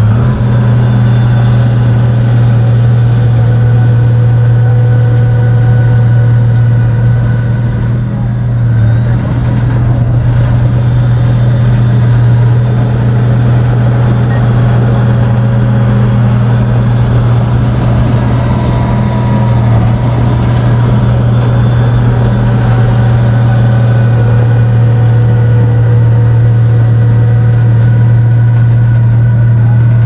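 Komatsu bulldozer's diesel engine running steadily with a loud, low drone, easing off briefly about eight seconds in.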